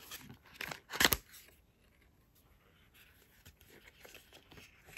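Stiff cardstock album packaging being handled and unfolded: brief paper rustles and slides, with one sharp snap about a second in, then faint scattered rustles.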